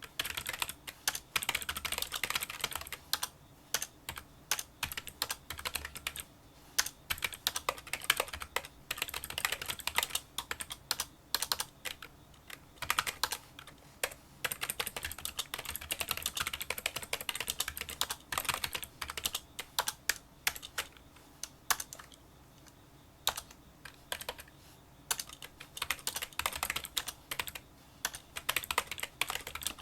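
Touch-typing on a Kinesis Freestyle Solo split keyboard with membrane key switches, giving rapid, fairly quiet small clicking keystrokes in fast runs with short pauses between bursts.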